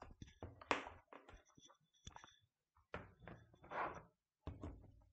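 Faint, irregular knocks, taps and brief rustles, with a few slightly louder ones about a second in, near four seconds and just before the end.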